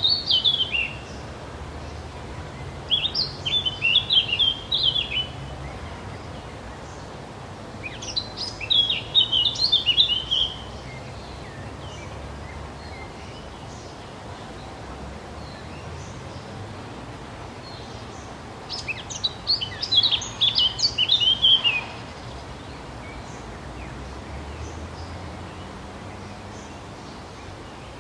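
A songbird singing: four phrases of quick, warbling chirps, each two to three seconds long, with long pauses between, over a steady low background rumble.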